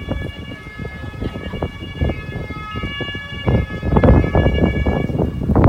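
Several steady high-pitched tones from a CAF tram standing at a stop, held for several seconds, over gusty low rumble that grows stronger about three and a half seconds in.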